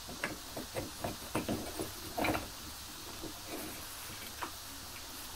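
Light clicks and knocks of a steel drill bit and wooden drilling-jig parts being handled and fitted together, several in quick succession over the first couple of seconds with one louder knock, then only a few isolated clicks.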